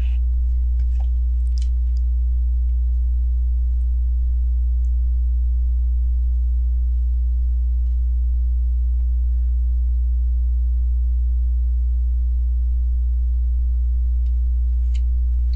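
Steady low electrical hum with a ladder of evenly spaced overtones, unchanging throughout and the loudest thing heard. A few faint short clicks about a second in and again near the end.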